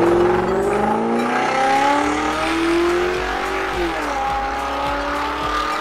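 Ford hatchback's engine revving hard as the car slides across dry dirt. Its pitch climbs for about three and a half seconds, drops sharply about four seconds in, then holds steadier over a hiss of tyres and grit.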